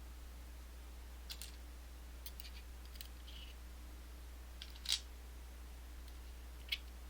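Light metallic clicks and clinks of small Abloy lock discs and core parts being handled and set down one at a time on a hard surface, a handful of scattered taps with the loudest about five seconds in.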